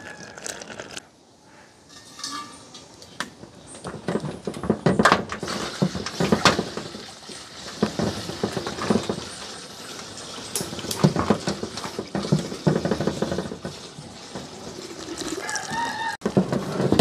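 Water poured in a stream into an aluminium cooking pot, splashing as the pot fills. It stops abruptly near the end.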